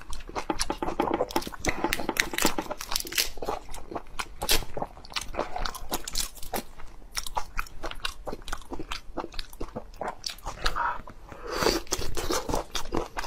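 Shell of a large raw prawn cracking and crinkling as it is pulled apart by hand, mixed with close-miked wet chewing and sucking. A quick run of small clicks and crackles, with a louder breathy mouth sound near the end.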